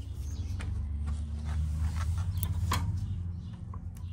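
1954 Allis-Chalmers WD45 tractor engine idling, a steady low rumble, with a few faint clicks over it.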